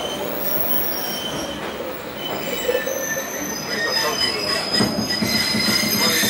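Choshi Electric Railway train heard from inside the car while running, with the wheels squealing against the rails over the running noise. The high, thin squeal grows stronger about halfway through.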